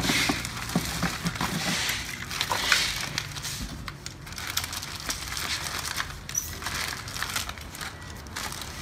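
Plastic bag crinkling and rustling as small plastic sprayer nozzles are taken out of it, with light clicks as the parts are set down on a concrete floor.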